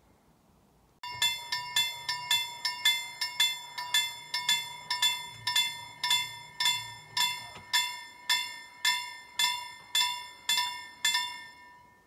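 Swedish level crossing warning bell ringing in sharp, even strokes, about two a second, as the barriers come down to warn of an approaching train. It starts about a second in and stops near the end, once the barriers are down.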